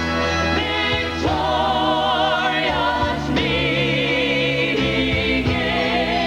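Gospel music: a full arrangement of long held notes with vibrato, changing chord about a second in and again a little past three seconds.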